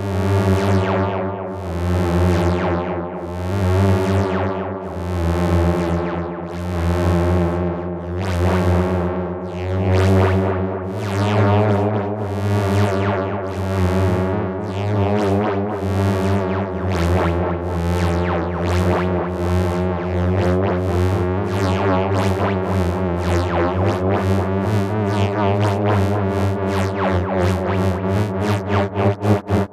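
Modular synthesizer (AE Modular) drone from a self-oscillating Nyle filter run through a phaser and delay: a steady low hum with stacked tones, swept by repeated falling whooshes about once a second that speed up over the last few seconds.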